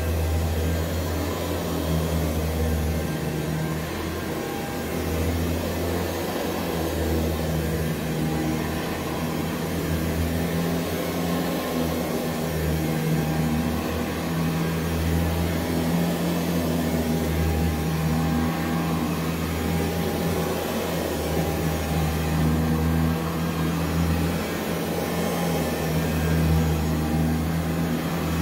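Early-1970s Hoover U4007 upright vacuum cleaner running steadily as it is pushed back and forth over carpet. Its motor is powered by a battery backup unplugged from the wall, and it keeps running on battery power. It makes a steady low hum with a rushing hiss, rising and falling slightly in level as it moves.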